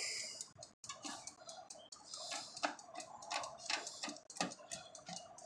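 Irregular light clicks and taps of hard objects, most likely a screwdriver and the melted plastic of an NES light gun on a metal oven tray, with a short hiss at the start.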